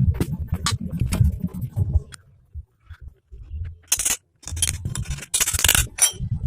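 Metal engine parts and hand tools clinking and scraping as a small motorcycle engine is assembled by hand: scattered clicks, a pause of about two seconds, then a cluster of clinks and scrapes.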